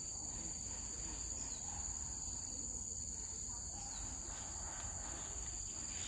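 Steady high-pitched drone of insects, crickets or cicadas, in several overlapping bands, with a couple of faint short falling notes over it.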